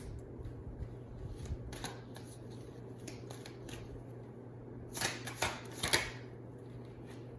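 Tarot cards being handled as the next card is drawn: soft slides and flicks, with a louder rustle of cards about five to six seconds in. A low steady hum runs underneath.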